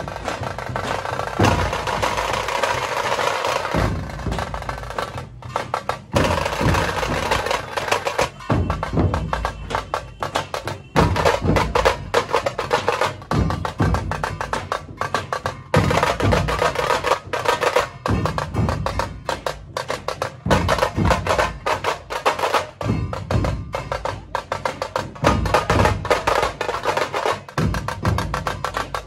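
Dhol-tasha ensemble drumming: fast, dense rolls on tasha drums played with sticks, with dhol beats underneath.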